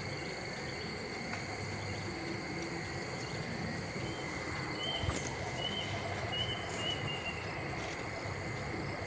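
Foil-backed origami paper rustling and crinkling softly as hands crease, smooth and turn the sheet over, with a sharper rustle about five seconds in. A steady high-pitched whine runs underneath, and a few short high chirps come near the middle.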